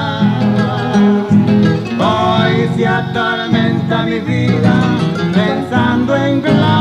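Cuyo tonada music played on acoustic guitars: a plucked melody over steady bass notes.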